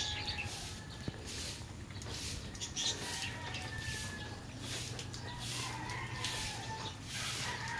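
Rhythmic rustle of clothing rubbing against the phone's microphone in step with brisk walking, about two a second, with faint distant animal calls behind it.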